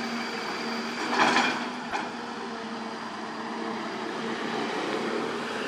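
Diesel engines of dump trucks and a Hyundai 220 excavator running steadily, with a short, loud rush of noise about a second in.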